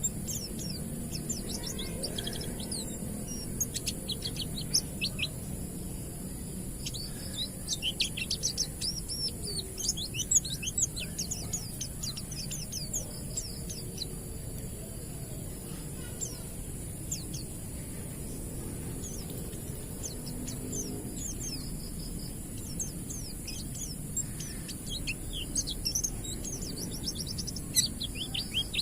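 White-eye (pleci) singing its 'ngalas' song: repeated bursts of rapid, high-pitched twittering chirps over a steady high hiss.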